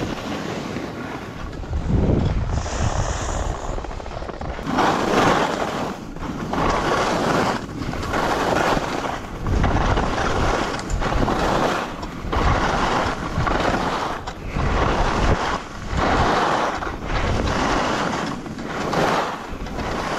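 Skis swishing and scraping across snow through a run of turns, swelling and easing about once a second, with wind rushing over the camera microphone.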